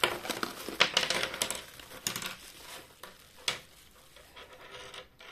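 Bubble wrap rustling and crinkling as plastic toy soldier figures are unwrapped, with several sharp clicks of the hard plastic figures knocking against the cardboard box and the tabletop, mostly in the first half.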